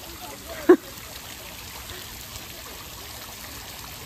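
Shallow water running steadily over a gravel bed in an outdoor channel, a continuous trickling flow. About two-thirds of a second in, one brief loud squeal cuts in.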